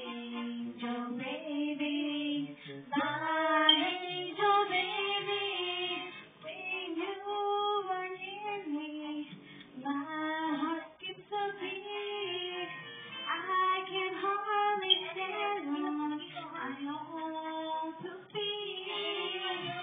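A young woman singing into a corded handheld microphone, one voice carrying a melody with long held notes and smooth glides between pitches.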